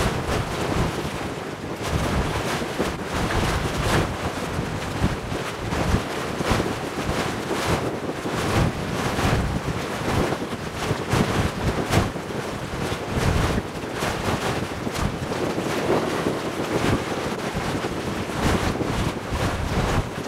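Wind buffeting the microphone in uneven gusts over a choppy sea, with waves washing beneath it.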